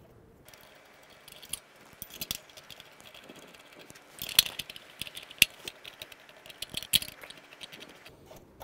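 Metal clutch parts and steel installation tools on a BMW R90/6 clutch being handled and set into place: irregular light rattling and sharp metallic clinks, a few louder ones in the middle.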